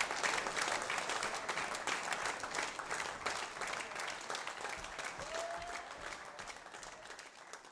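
Concert audience applauding at the end of a live piece, the clapping gradually fading away. A short high call rises out of the crowd about five seconds in.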